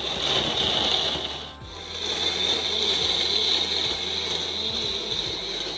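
Electric kitchen mixer grinder running with a steady high-pitched whine as it grinds wet green masala ingredients with water into a fine paste; it stops briefly about one and a half seconds in and then starts again.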